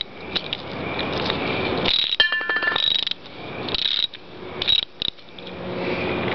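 Socket ratchet tightening the float-bowl bolt of a lawn mower carburetor, with a quick run of ratchet clicks a little over two seconds in amid the scrape and rub of the tool and parts being handled.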